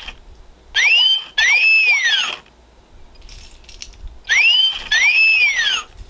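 Polly the Insulting Parrot animatronic toy playing a recorded whistle through its small speaker, twice: each is a short rising note followed by a longer rise-and-fall, the second coming about three and a half seconds after the first.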